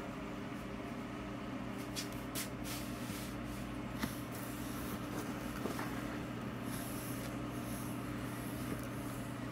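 A steady low mechanical hum, with a few light clicks, the sharpest about four seconds in.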